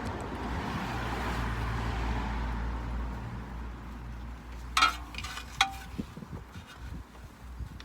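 A vehicle passing by: a low engine hum and tyre noise that swell and fade over the first few seconds. Then come two sharp clicks less than a second apart, as a screwdriver works at the plastic clip of a brake wear-sensor wire.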